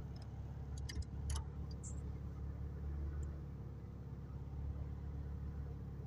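Inside the cabin of a Honda Civic EK hatchback with a K24A2 engine swap: engine and road noise as a steady low hum with no revving, and a few light clicks about a second in.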